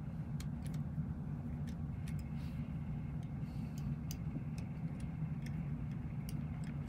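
Scattered faint clicks and ticks from fingers handling the plastic body and circuit board of a DJI Spark drone, over a steady low background hum.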